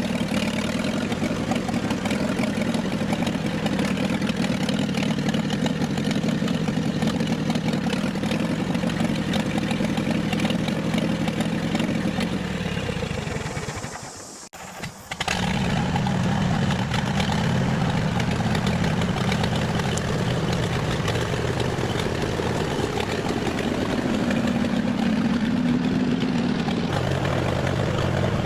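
David Brown 25 tractor's four-cylinder petrol engine running steadily. About halfway through it fades away and cuts out, then comes back suddenly and runs on, with a change in pitch near the end.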